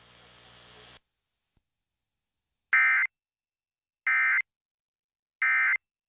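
Emergency Alert System end-of-message code: three short, identical bursts of two-tone digital data screech, each about a third of a second long with about a second of silence between. They signal the end of the alert broadcast.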